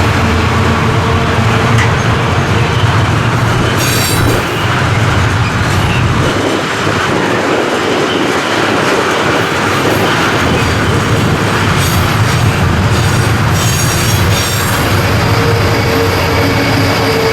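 Diesel-hauled limestone freight train passing. The locomotive's engine hum is heavy for the first six seconds or so, then the loaded wagons roll by with rail noise and brief high-pitched wheel squeals about four, twelve and fourteen seconds in.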